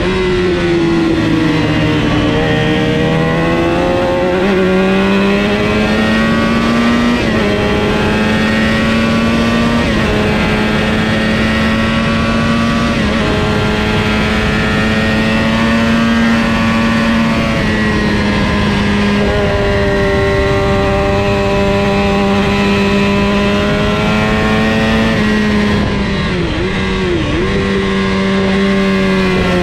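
Engine of a 400 Supersport racing motorcycle at racing speed, heard onboard. The note stays high and fairly even, stepping in pitch as gears change, sagging about two seconds in and dipping sharply twice near the end.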